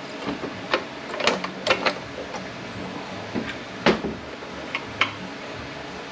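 Metal transmission parts and tools clinking and knocking as they are handled, a dozen or so irregular clicks and taps, the loudest about four seconds in.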